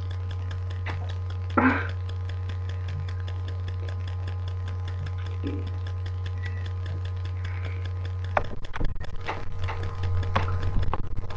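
Steady low electrical hum on a webcam microphone, broken by one short sound about a second and a half in. From about eight seconds in comes a run of irregular knocks and bumps.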